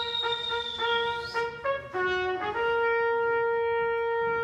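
Trumpet playing a fanfare: a quick run of short repeated notes on one pitch, a few notes stepping lower and back up, then one long held note.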